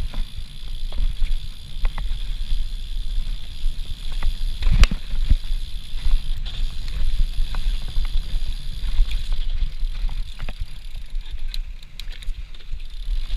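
Mountain bike ridden fast over a dirt singletrack, heard from a camera on the rider: a steady low rumble of wind and tyres on the trail, with the bike rattling and clicking over bumps and one hard knock about five seconds in.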